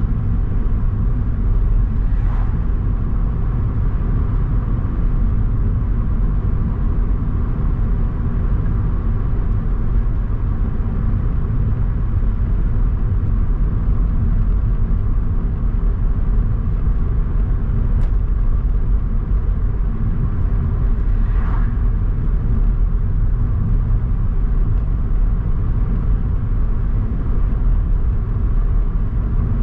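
A car driving along a road: a steady low rumble of tyre and engine noise that stays even throughout.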